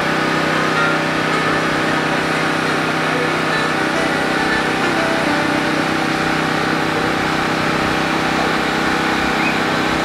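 A steady engine drone at a constant pitch, unchanging throughout.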